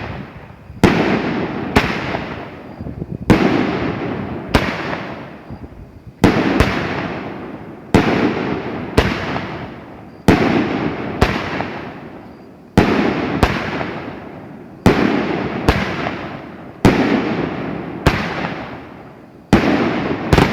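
A 500-gram, 12-shot consumer firework cake firing: its shells launch and burst in sequence. The result is a string of loud, sharp bangs about every second, each trailing off into a fading rumble.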